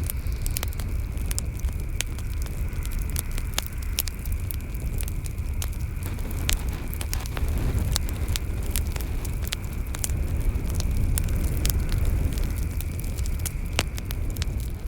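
Campfire crackling and popping in sharp irregular snaps, over a heavy wind rumble on the microphone.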